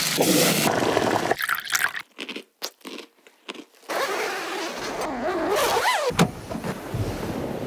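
An egg cracked into a hot frying pan on a camp stove and sizzling, then short rustling and scraping of sleeping-bag fabric, with a zip-like run of quick strokes.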